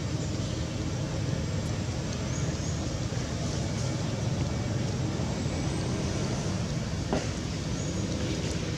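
Steady low rumbling noise, with a single sharp click about seven seconds in.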